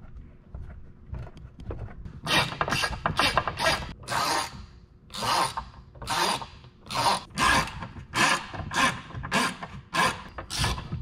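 Hand ratchet wrench clicking in quick back-and-forth strokes, about two to three a second, starting about two seconds in, as it runs self-threading nuts down onto the step pad's posts until they are snug to the metal. Before that, faint small metal ticks from nuts being handled.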